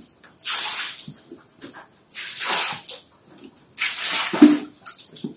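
Water poured from a plastic bucket onto a rough concrete floor in three short splashes about one and a half seconds apart, rinsing soap foam and bleach off the floor; the third splash has a short low thump.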